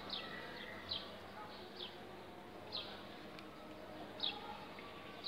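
A small bird chirping: short, high, falling chirps, about one a second.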